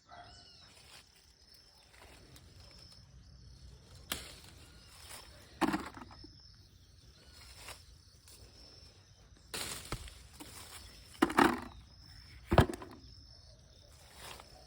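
A handful of separate short knocks and rustles, the loudest two close together about three quarters of the way in, over a faint high chirp repeating steadily.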